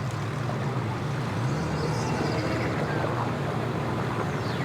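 A vehicle engine running steadily with a low hum, amid outdoor traffic noise.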